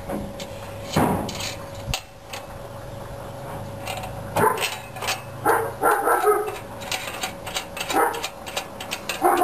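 Dogs barking repeatedly, in short bursts from about four and a half seconds in. Before that, a couple of sharp metal clicks from safety chain and bracket hardware being handled.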